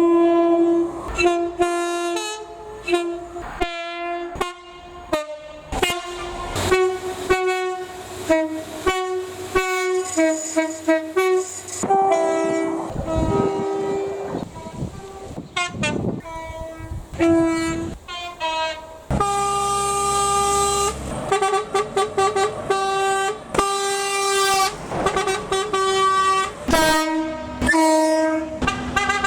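Train air horns sounded in a long, rapid run of short toots that jump between several tones, with a few longer held blasts, the longest about 19 seconds in.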